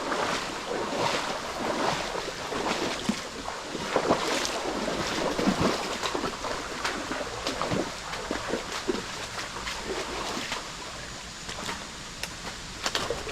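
Running stream water with irregular small splashes and knocks.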